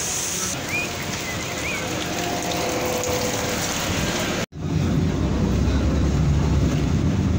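Steady hiss of heavy rain around a Metrobus at the platform. After an abrupt break about four and a half seconds in, the low steady rumble of the bus running, heard from inside the cabin.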